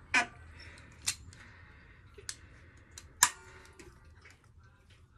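Sharp metallic clicks of locking pliers working on a stuck rear shock absorber bush on a motorcycle swinging arm. There are four or five irregular clicks about a second apart, the loudest a little past three seconds in.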